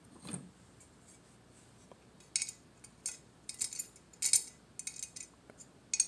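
Light, irregular metallic clicks and scrapes of a small tool and parts against an airsoft rail handguard as a grub screw is worked out of its gas-block piece, mostly from about two seconds in.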